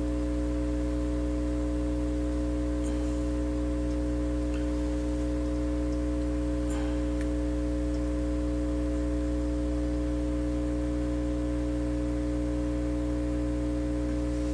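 Steady electrical hum with several fixed tones, and a few faint small ticks a few seconds in.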